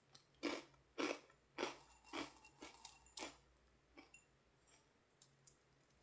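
Dry toasted whole-grain O's cereal crunched in the mouth while chewing, about two quiet crunches a second for three seconds. It then trails off to a few faint clicks.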